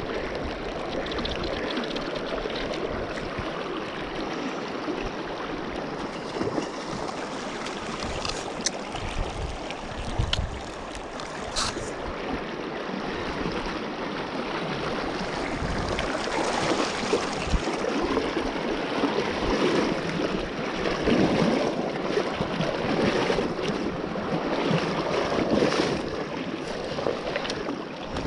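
Shallow river current rushing steadily around the wading angler, with a few sharp clicks near the middle and louder water splashing in the second half as a hooked fish is brought to the net.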